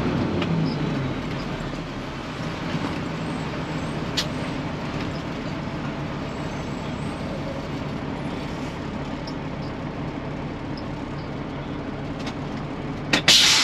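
Cat C15 diesel engine of a 2001 Peterbilt 379 running steadily. Near the end, a short, loud hiss of air from the truck's air brakes.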